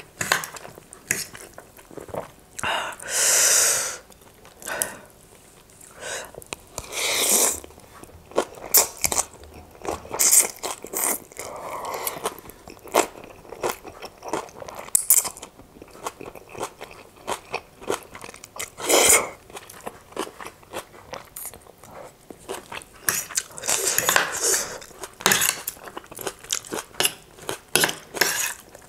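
Close-miked eating: noodles slurped in several swells of about a second each, between chewing and the clicks of metal forks against a china plate.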